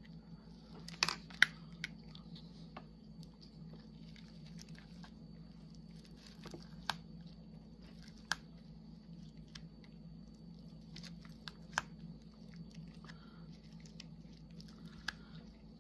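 Irregular sharp clicks and faint scratching from a razor knife blade and fingertips working stuck, torn wax paper off the sticky glue of a diamond-painting canvas. The loudest clicks are a pair about a second in. A low steady hum sits underneath.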